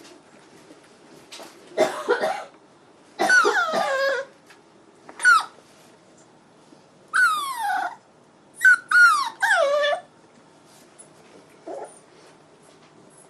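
Month-old puppy whining and yelping: a string of about seven high cries in the middle of the stretch, several sliding downward in pitch, then a faint last whimper near the end.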